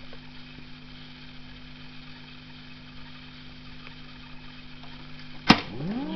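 Fialka-2 reel-to-reel tape recorder running with a steady hum and hiss. About five and a half seconds in a control key clicks sharply, and the sound glides up in pitch as the tape comes up to speed, with music starting.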